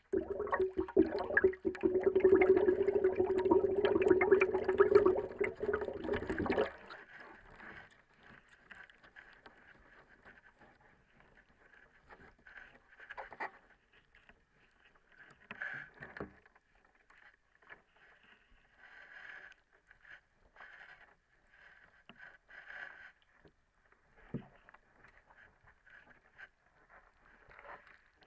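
Underwater handling of a cardboard sandwich pack and its wrap, picked up by a hydrophone in a water tank. For the first six or so seconds there is loud, dense crackling over a steady low hum, which stops abruptly; after that come scattered soft rustles, scrapes and the odd knock.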